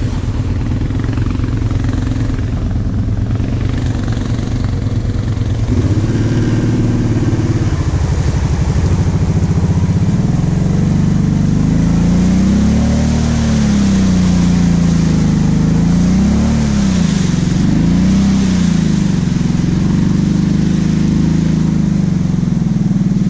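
ATV engine running while the quad drives through a water-filled mud rut; engine speed is fairly steady at first, then from about ten seconds in rises and falls repeatedly as the throttle is worked.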